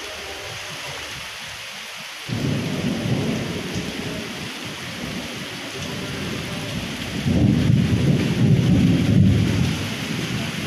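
Heavy rain falling steadily on a street, with a low rumble of thunder that comes in suddenly about two seconds in and grows louder again a few seconds before the end.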